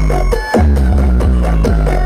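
Loud electronic dance music with heavy bass and a steady beat, played over a large sound-system rig; the bass drops out briefly just before half a second in.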